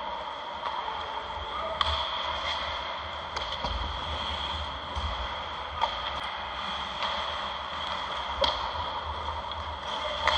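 Ice hockey game sounds: about five sharp clacks of hockey sticks and puck, over a steady noisy rink background with a high hum.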